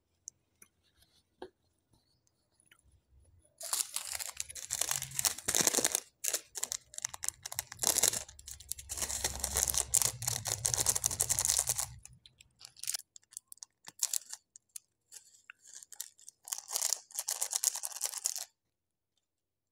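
Small plastic seasoning sachet crinkling as it is handled and torn open, starting about four seconds in and stopping near thirteen seconds; after a short pause it crinkles again as its flakes are shaken out onto the noodles.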